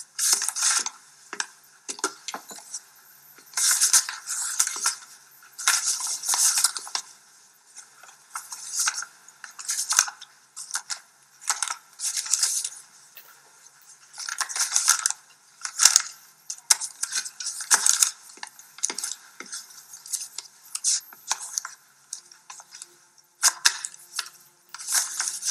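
Photographs and sheets of paper being handled and leafed through, rustling in short irregular bursts every second or two. Faint music comes in near the end.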